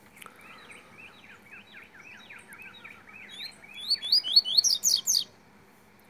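Double-collared seedeater (coleiro) singing: a run of quick down-slurred whistles that speeds up and climbs in pitch, ending in a burst of loud, high notes about five seconds in.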